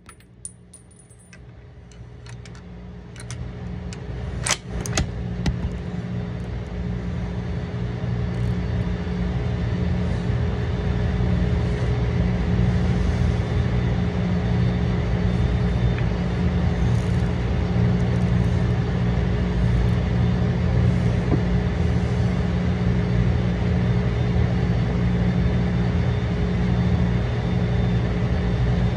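Steady hum of a shooting range's ventilation fans, swelling over the first several seconds and then holding. A few sharp metallic clicks come from the gun being handled, the loudest about four and five seconds in.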